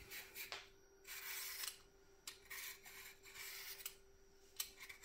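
Vegetable peeler scraping along a raw carrot, peeling it in a series of short, faint scraping strokes, several in a row.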